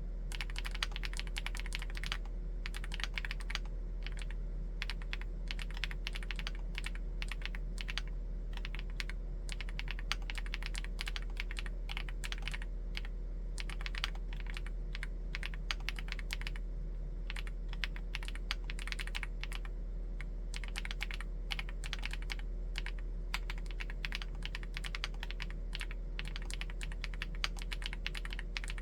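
Continuous typing on a Chilkey ND75 mechanical keyboard with Gateron EF switches in a full aluminium case: rapid, irregular keystroke clicks and clacks, in faster runs and short pauses.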